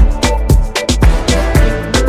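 Background music with a steady drum beat and deep bass.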